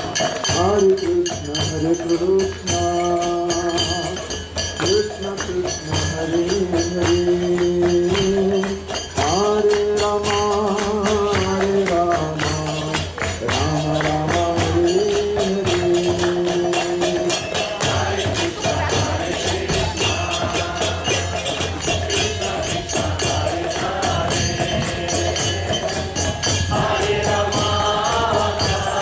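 Devotional kirtan: voices sing a held, gliding melody over a steady beat of jingling percussion. The melody is strongest in the first half.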